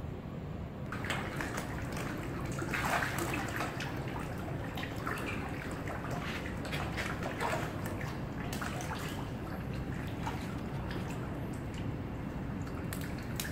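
Pond water splashing and dripping in many short bursts as a crowd of fish thrash at the surface for feed, starting about a second in and busiest a couple of seconds later, over a steady low rumble.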